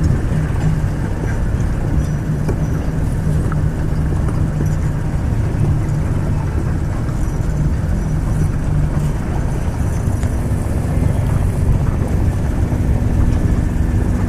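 Motorboat engine running steadily while the boat is under way, its note shifting a little higher about ten seconds in.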